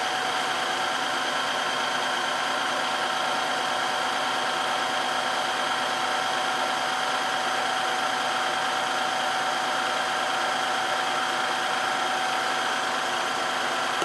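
Dreame H11 cordless wet-dry vacuum running its self-cleaning cycle on the dock: the suction motor and the spinning roller brush give a steady whir with a constant high whine.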